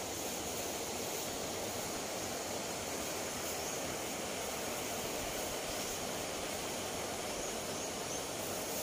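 Steady outdoor hiss of open-air ambience, even throughout with no distinct events.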